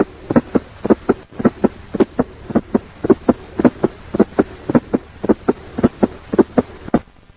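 Human heart sounds in a fast S4 gallop (atrial gallop), with the fourth heart sound falling just before the first in each beat. It is a short quick run of low thuds that stops about seven seconds in. An S4 gallop is typical of hypertension, aortic stenosis and coronary artery disease.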